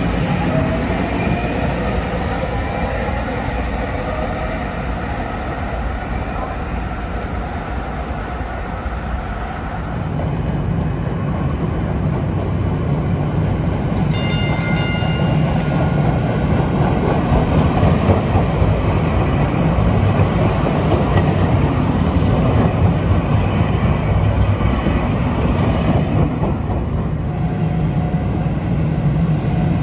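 DART Kinki Sharyo light rail trains running: a whine that glides in pitch in the first few seconds, then a steady low rumble of a train rolling along street track. A brief high ringing sound comes about halfway through.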